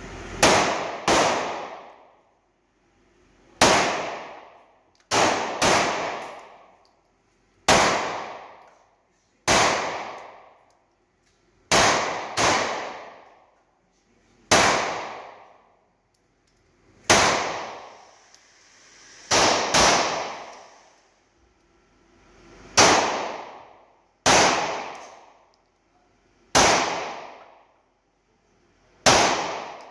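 CZ P-10 C pistol being fired in slow, steady shots, about seventeen in all, roughly one to two and a half seconds apart with a few quick doubles. Each shot has a long echo off the concrete walls of the indoor range.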